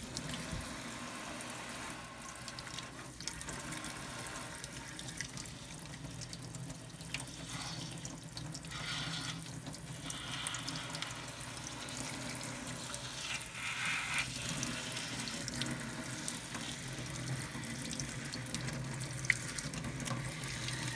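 Kitchen faucet spraying water into a stainless steel sink as hands rub and rinse a forearm under the stream. The splashing is steady, growing brighter in spells around the middle as the hands shift in the spray.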